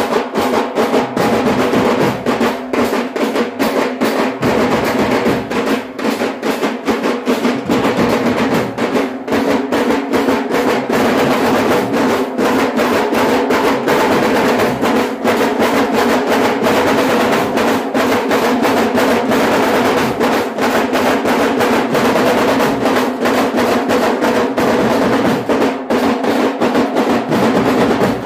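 Festival drumming: loud, rapid drum strokes and rolls running without a break over steady held musical tones.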